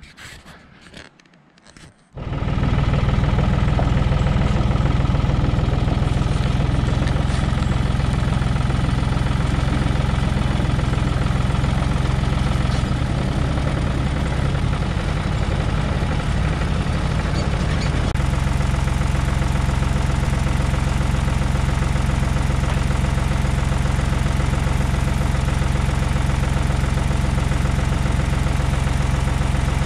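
Tractor engine running steadily at a constant speed, a deep, even hum that sets in about two seconds in after a few faint knocks; its tone shifts slightly about 18 seconds in.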